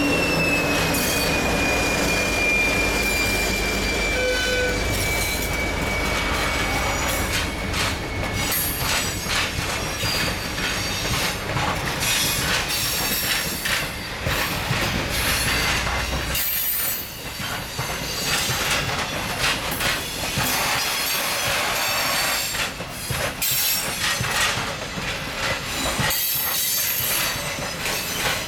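A TEM2 diesel locomotive's engine runs as it passes in the first seconds, with a high steady squeal that sags slightly and fades. Then a long train of open freight wagons rolls slowly past: the wheels clatter and click over rail joints and points, and flanges squeal now and then.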